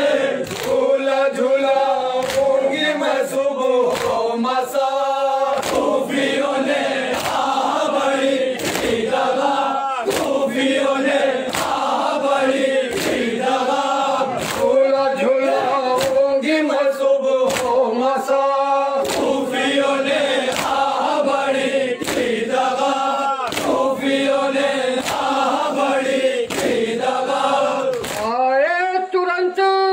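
A group of men chanting a noha (Shia lament) in unison, with sharp chest-beating (matam) strikes keeping time a little under once a second. Near the end one voice slides up and holds a steady note.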